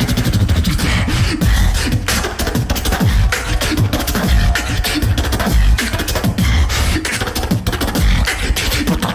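A beatboxer performing a fast, dense beat of mouth-made kick drums, snares and clicks, with heavy bass hits.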